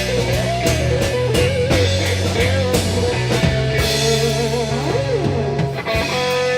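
Blues-rock band playing a slow blues, an electric guitar lead bending notes over bass and drums. About six seconds in, the guitar settles onto one long held note with a slight wobble.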